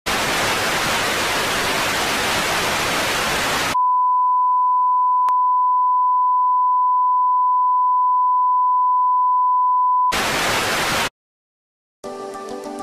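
TV static hiss sound effect, which cuts to the steady single-pitch test-tone beep that goes with colour bars and holds for about six seconds. A short second burst of static follows, then about a second of silence, and music starts near the end.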